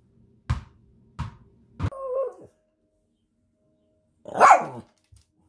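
Small Shih Tzu–Yorkie mix dog barking: three short, sharp barks, the third trailing off into a wavering whine. About four seconds in comes one louder, longer bark that falls in pitch.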